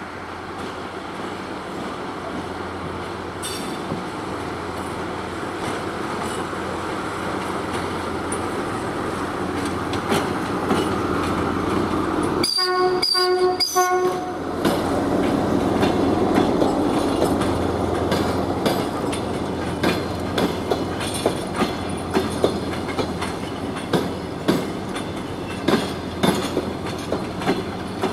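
DR1A diesel multiple unit approaching and passing, its running noise growing louder. About halfway through it sounds its horn in three short blasts, then the carriages' wheels clack over the rail joints as they roll by.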